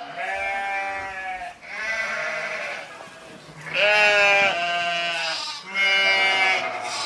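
Goats bleating, about five long calls one after another.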